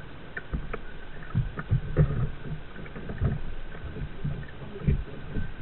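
Water sloshing and slapping against a plastic kayak hull on a moving river, heard as irregular low thumps over a soft rush of water.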